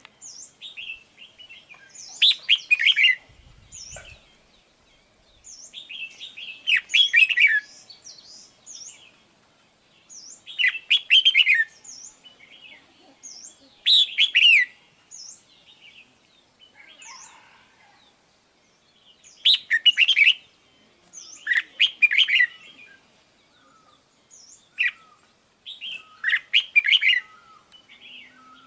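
Red-whiskered bulbul singing: short, bright warbling phrases repeated every few seconds, with thin, high, downward-sliding notes between them.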